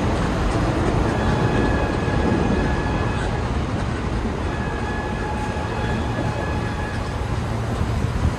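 New York City subway trains running on an elevated curved track: a steady rumble, with a faint, steady high-pitched tone above it from about a second in until near the end.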